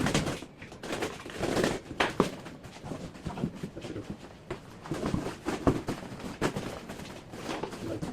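Irregular knocks, clicks and light clatter of hard objects being handled and set down, as paintless dent repair rods are packed.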